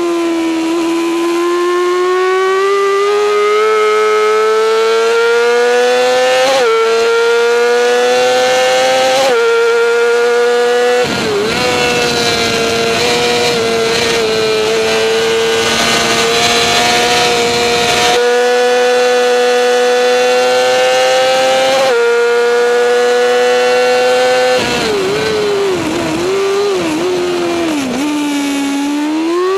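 Racing motorcycle engine at high revs, picked up by a camera mounted on the bike, with wind rushing past. The engine note climbs steadily, breaks briefly about six and nine seconds in, holds high in the middle, then dips and wavers several times near the end.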